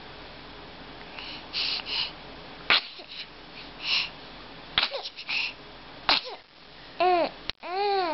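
A fit of repeated sneezing: a string of short, sharp sneezes a second or so apart, the last two with a pitched, voiced sound near the end.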